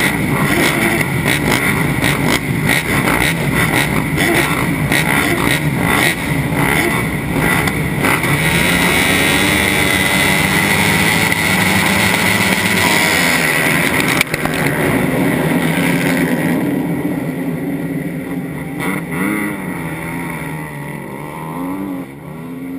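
A pack of 250 cc four-stroke motocross bikes revving together at the start gate, many engines at once and loud. From about sixteen seconds in the pack pulls away and the sound fades, with engines still heard revving in the distance near the end.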